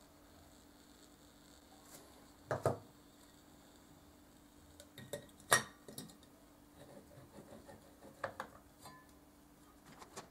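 Glass lamp chimney knocking and clinking against the metal burner of an antique oil lamp as it is handled and fitted in place. There are a few separate light knocks and clinks; the sharpest clink comes about halfway through.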